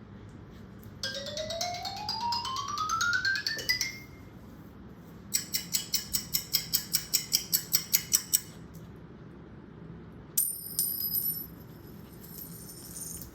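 Sound effects played to a puppy: a buzzy tone gliding steadily upward in pitch for about three seconds, then a quick run of about fifteen sharp, bright, high strokes, then a single bright ringing ding that fades out.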